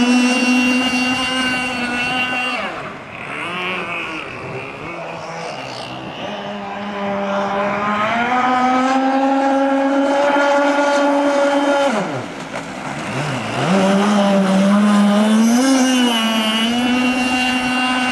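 Engine of a radio-controlled racing boat running at high revs with a steady, buzzing whine. It eases off about three seconds in and picks up again a few seconds later. Around two-thirds of the way through the pitch dives sharply and climbs straight back up, as on a throttle lift in a turn.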